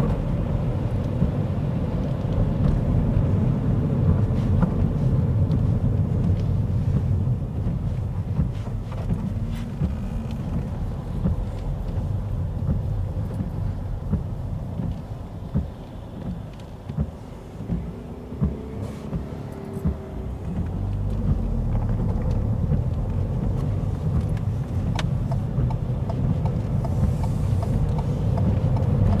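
Ford car heard from inside the cabin while driving on wet roads: a steady low rumble of engine and tyres, which drops away for a few seconds around the middle as the car slows for a roundabout, then builds again.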